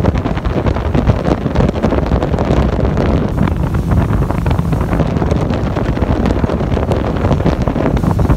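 Heavy wind buffeting a phone microphone on a fast-moving motorboat, with the boat's running noise and water rush underneath.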